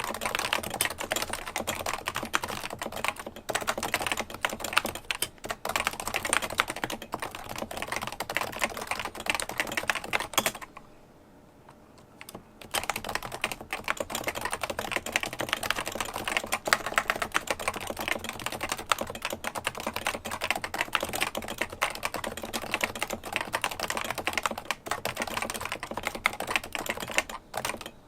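Continuous fast typing on a Realforce 108UG-HiPro keyboard with 45 g Topre switches: a dense run of key strokes, broken by a pause of about two seconds near the middle.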